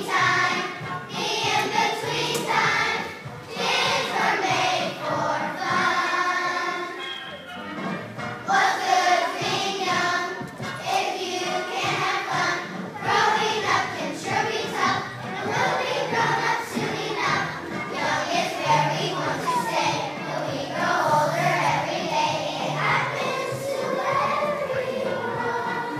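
A children's choir singing a song together over a musical accompaniment.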